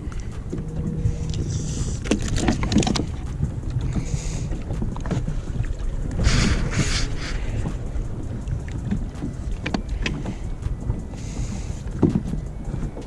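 Sea water lapping and splashing against a fishing kayak, over a steady low wind rumble on the microphone. There are a few brief splashing rushes and some small knocks on the hull.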